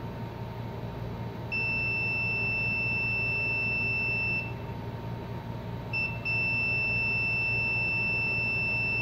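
A VC99 digital multimeter's continuity beeper sounds a steady high tone for about three seconds, gives a short blip, then holds the tone again for about three seconds. Each beep means the probes have found continuity, here between the backlight-power fuse and the backlight connector's pins.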